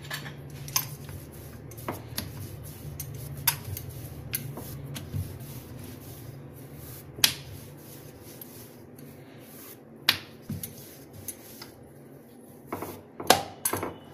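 Wooden rolling pin rolling out a thin disc of dough on a stone countertop: a low rumble of rolling through the first half, with scattered sharp clicks and knocks of the pin and hands on the stone, a cluster of them loudest near the end.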